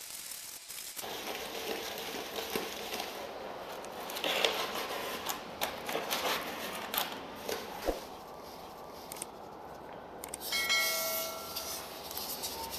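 Gloved hands scooping wet black tile grout from a tub and smearing it over a styrofoam-and-cement rock panel: uneven rubbing and scraping with scattered light knocks and clicks. A brief pitched tone sounds about two-thirds of the way through.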